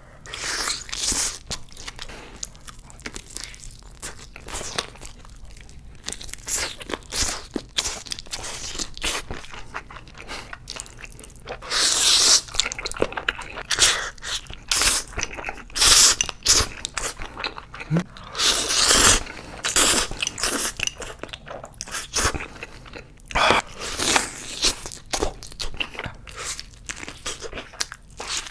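Close-miked eating: repeated crunchy bites and chewing of crisp food, with louder bursts of crunching at several points.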